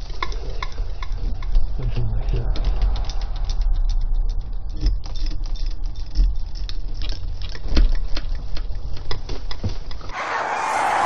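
Handling noise on a body-worn camera's microphone as the wearer walks: a low rumble with rubbing and many scattered clicks and knocks. About ten seconds in, it switches abruptly to a different, brighter and fuller sound.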